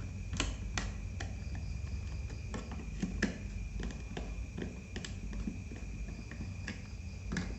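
Scattered sharp clicks and light taps of a small screwdriver and plastic laptop parts being handled while the laptop is reassembled, about a dozen at uneven intervals, over a faint steady high whine.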